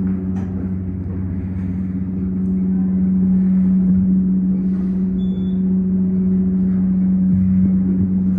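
Montgomery KONE dry-powered hydraulic elevator pump motor running steadily as it lifts the car, a loud even hum pitched at F-sharp.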